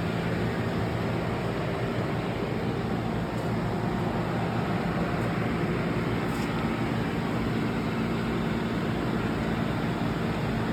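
Steady mechanical hum of running machine-shop equipment, with a few constant low tones and no change in pitch or level.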